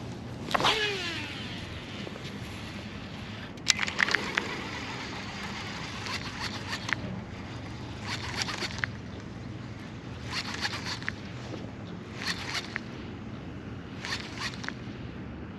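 A fishing cast: the reel spool whirs as line pays out, falling in pitch as the lure flies. About three and a half seconds in come a few sharp clicks, then the reel is cranked in short spurts roughly every two seconds as the lure is wound back, over a steady low hum.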